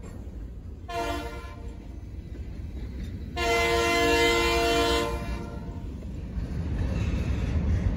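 Diesel locomotive air horn sounding a short blast and then a longer, louder one, the closing short-and-long of a grade-crossing signal, under the low rumble of freight cars rolling past.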